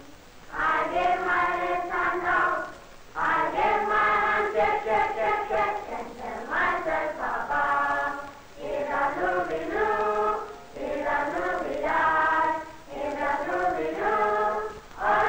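A choir singing in phrases of two to three seconds each, with a short break between phrases.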